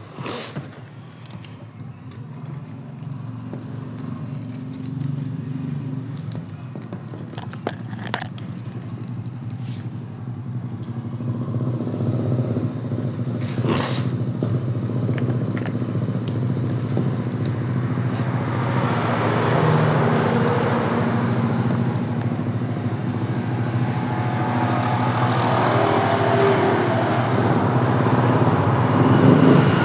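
A motor engine runs steadily and grows louder through the second half. Over it come a few crisp crackles and scrapes of dry straw strands being pulled through a woven bag.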